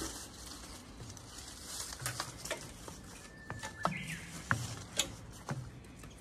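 A Japanese bush warbler sings once past the middle: a long steady whistled note, then a quick higher flourish. Around it, a series of sharp footsteps, louder than the bird.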